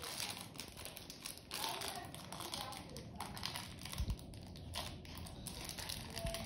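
Aluminium foil wrapper crinkling as it is pulled open by hand, in a run of irregular rustles.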